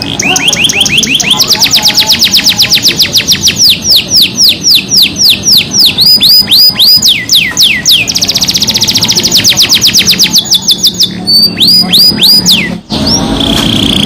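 Canary singing a loud, fast song: rolls of rapidly repeated falling whistled notes that change speed every second or two, with a brief break near the end followed by a long steady whistle.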